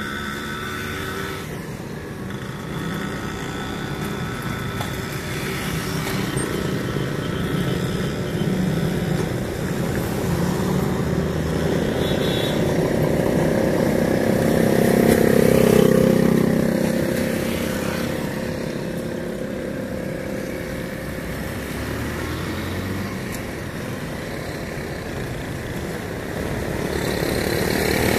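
Road traffic and engines running, with a motorcycle and a motorcycle rickshaw passing close, swelling up to their loudest about halfway through and fading away; another vehicle approaches near the end.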